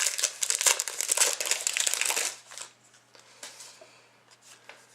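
A trading card pack's wrapper crinkling as it is torn open, dense crackling for about two seconds, then fainter rustling and handling of the cards inside.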